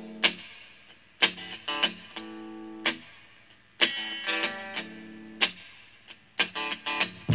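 Music: the intro of a rock song, with an electric guitar strumming short, choppy chord stabs in clusters of two or three, each ringing briefly before it is damped.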